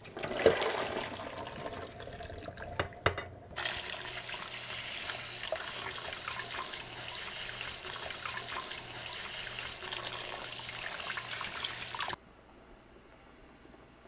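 Kitchen tap running into a stainless steel bowl in a steel sink while blanched fish pieces are rinsed, with a few clicks of chopsticks against the bowl in the first seconds. Then the tap runs full and even for about eight seconds and is shut off suddenly near the end.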